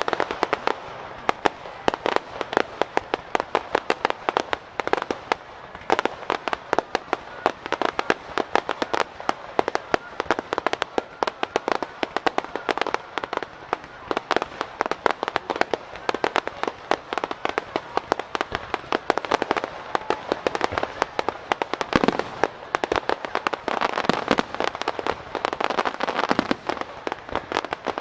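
Starmine fireworks barrage by Isogai Fireworks: a rapid, unbroken string of bangs and crackles as shells are fired and burst in quick succession. One louder boom stands out about three-quarters of the way through.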